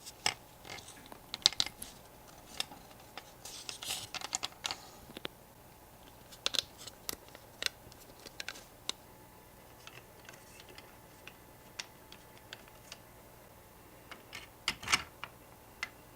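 Irregular small clicks and taps of small hard parts being handled and fitted on a diecast model car, some single and some in quick clusters. The loudest clusters come about a second and a half in and near the end.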